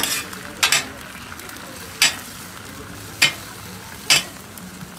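Beaten egg sizzling on a flat-top griddle, with metal spatulas scraping across the hot steel in five short, sharp strokes as the egg is pushed into a square sheet.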